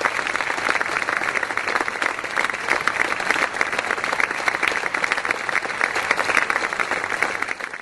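A small group of people clapping and applauding steadily, fading out near the end.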